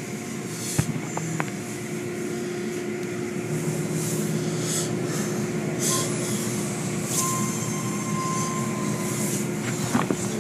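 Automatic tunnel car wash heard from inside the car: a steady machinery hum under water spray hissing against the glass and body in irregular surges, with a few sharp knocks.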